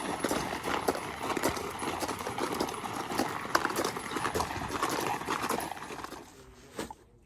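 Horse's hooves striking the ground in a fast, dense run, fading out about six seconds in, with one last knock shortly after.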